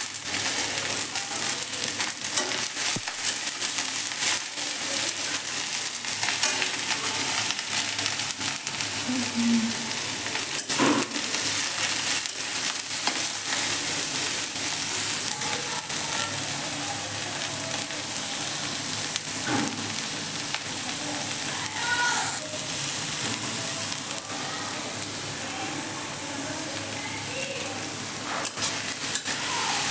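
Shredded cabbage sizzling as it fries in hot oil in a metal kadai, stirred with a steel spatula that scrapes and clicks against the pan.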